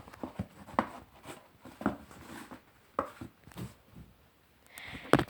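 Handling noises as flip-flops are put into a bag: a scattering of soft knocks and clicks with faint rustling between them.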